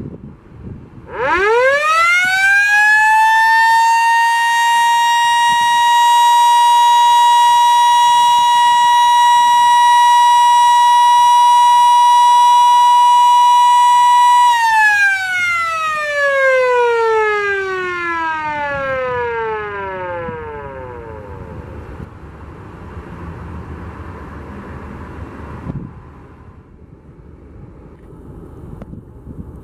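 Sentry F-2 electromechanical fire siren sounding a short alert: it winds up to a single steady tone within a few seconds, holds it for about ten seconds, then winds down with its pitch falling away over several seconds.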